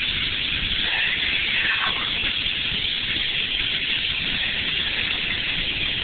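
Range Rover Sport driving over a rocky dirt trail, heard from inside the cabin: steady low engine and tyre rumble under a constant hiss.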